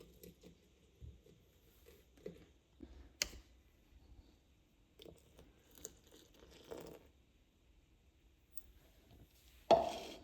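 Faint, scattered handling noises: soft knocks, a sharp click about three seconds in, and light rustling, with a louder thump and rustle near the end.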